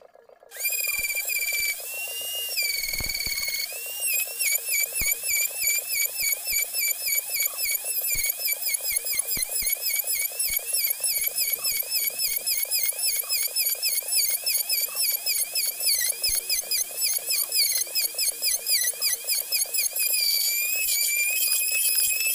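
Electric plunge router running at full speed and cutting a long slot in a wooden bed panel. It starts up about half a second in with a high whine. Through most of the cut the pitch dips over and over in a quick, even rhythm as the bit bites into the wood, then it runs steadier near the end.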